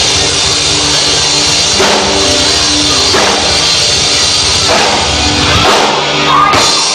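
Loud rock band music with drum kit and guitar.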